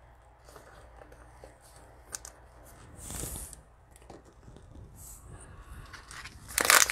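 Soft handling of trading cards with faint taps and a brief swish about three seconds in; near the end, the crinkly plastic wrapper of a cello pack of cards is grabbed and crackles loudly.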